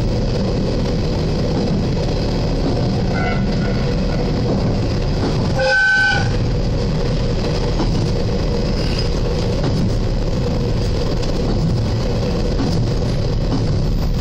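Diesel railcar running on the line, its engine and running vibration picked up heavily and distorted through the front window glass. A short horn toot sounds about six seconds in, after a fainter brief tone around three seconds in.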